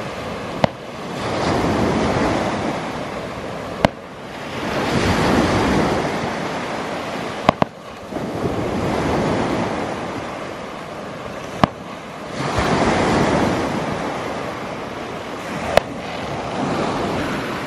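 Surf washing onto the beach in slow swells about every four seconds. A short, sharp crack comes at the start of each wave.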